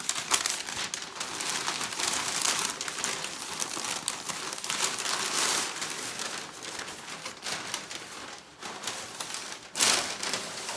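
Packing paper being crumpled and rustled by hand, with many sharp crackles throughout and a louder crunch near the end.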